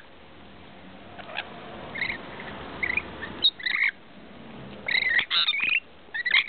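Rainbow lorikeets chattering and screeching while feeding together at a bowl: scattered short calls at first, then a dense burst of overlapping calls about five seconds in.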